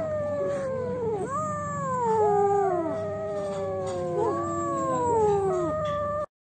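Several kittens meowing at once: overlapping high cries that each fall in pitch, one after another. They cut off abruptly near the end.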